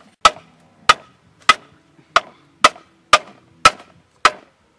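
Eight sharp chopping strikes on bamboo, one roughly every 0.6 seconds, evenly paced, each ringing off briefly.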